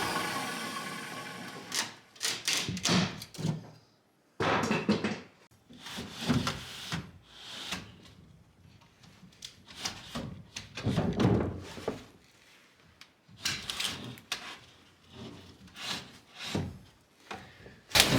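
A power saw winding down at the start. Then irregular wooden knocks, thumps and scraping as plywood sheets are shifted and fitted together.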